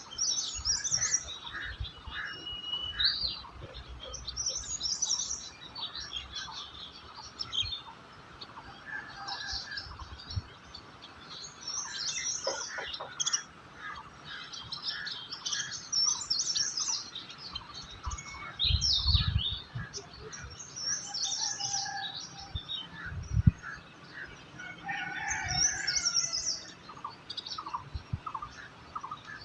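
Several wild birds chirping and singing, with clusters of quick high chirps every few seconds and a few lower calls among them. A few low thumps or rumbles come in the second half, one sharp one being the loudest sound.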